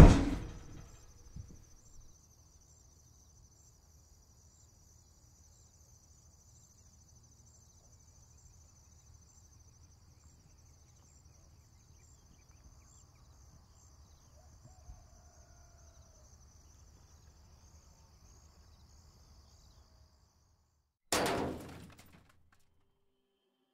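A loud hit that dies away over about two seconds, then faint outdoor ambience: a steady high, pulsing trill over a low hum. A second loud, sudden hit comes about 21 seconds in and fades within a second.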